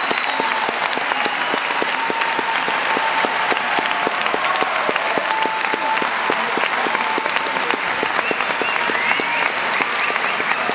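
Large crowd applauding and cheering, much of the clapping falling into an even beat.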